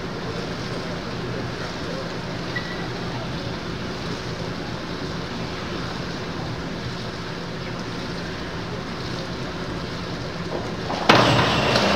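Steady hum and hiss of an indoor pool hall. Near the end a sudden loud burst comes in as the diver enters the water and the crowd starts clapping and cheering.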